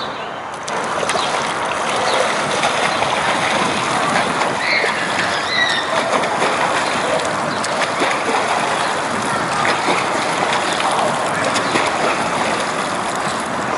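Steady splashing and churning of pool water from a swimmer kicking and pulling one arm at a time while holding a kickboard.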